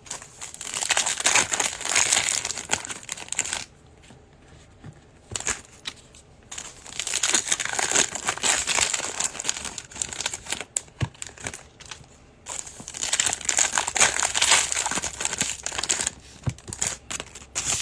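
Plastic wrapping on 2021 Prizm football card boxes and packs being torn open and crinkled by hand, in three long stretches of crinkling with short pauses between.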